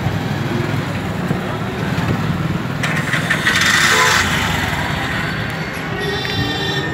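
Busy street traffic and crowd chatter: motorcycle and auto-rickshaw engines under a steady din of voices, with a horn beginning to honk near the end.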